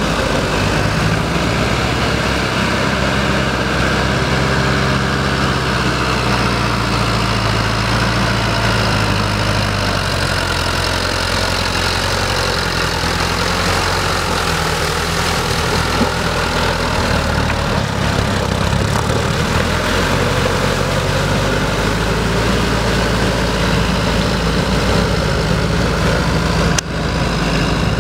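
Sonalika tractor's diesel engine running steadily under load while it drives a rotary tiller through wet paddy mud, its pitch shifting slightly. There is a brief break about a second before the end.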